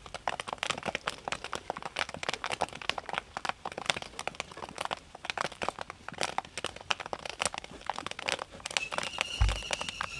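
Popcorn kernels popping in hot oil in heaped iron woks on a gas stove: a dense, irregular run of sharp pops and cracks. A single low thump about nine seconds in, and a faint high whistle-like tone joins near the end.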